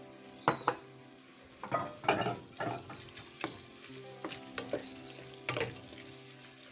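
Wooden spoon stirring a chunky tomato, onion and caper sauce in a stainless steel pot, in about eight irregular scraping strokes over a soft sizzle from the pan.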